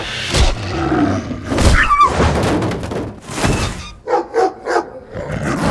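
Sound-effect animal fight between a large dog and a wolf: snarling with heavy thuds, a falling yelp about two seconds in, then a quick string of short barks about four seconds in.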